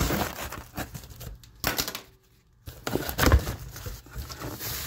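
Packing tape on a cardboard box being slit with a small blade and torn away, with the cardboard rustling and bumping as the flaps are pulled open. There is a brief lull a little after two seconds, and the loudest thumps come about a second later.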